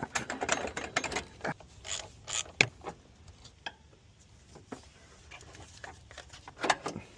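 Hand tools on car parts during an alternator replacement: quick ratchet-like clicking and rasping, then separate metal clinks and knocks, the sharpest about two and a half seconds in and another cluster near the end.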